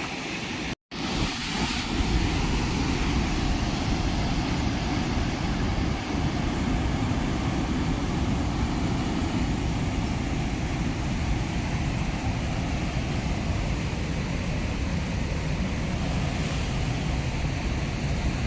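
Steady roar of a waterfall on a river in full flood, with wind rumbling on the microphone. A brief dropout comes just under a second in, after which the roar runs on evenly.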